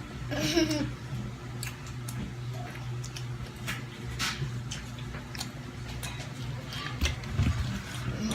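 Small scattered clicks and mouth sounds of people eating over a steady low hum, with a brief vocal sound about half a second in.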